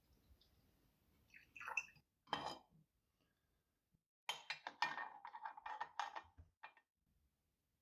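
Water being poured into a Vesuviana espresso machine's boiler, with metal and glass clinking. Two short clatters come about two seconds in. A busier run of splashing and clinking follows from about four seconds in and lasts some two and a half seconds.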